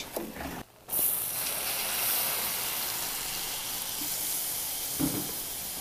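Milk poured into a hot margarine-and-flour roux in a saucepan, the roux sizzling with a steady hiss. The hiss starts about a second in.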